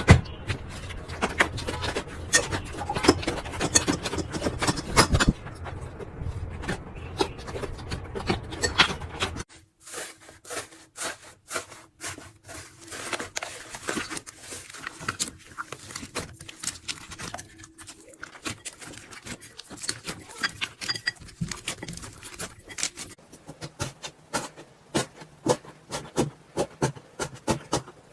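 Slime being squished and worked by hand, giving a run of small wet clicks and crackles. About nine seconds in the background drops away and the clicks become sparser and more separate.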